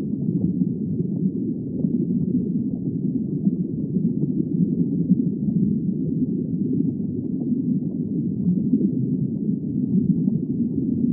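A low, muffled rumbling drone of the film's soundtrack, steady, with no clear pitch or beat.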